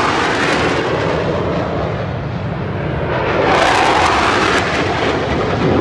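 AMX light attack jet's single Rolls-Royce Spey turbofan roaring loudly as the jet flies a low display pass overhead, swelling louder again about halfway through.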